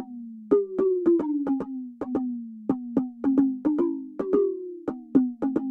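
Electronic pop music stripped down to a bare drum-machine break: quick, uneven runs of short synthesized drum hits, each one dropping sharply in pitch.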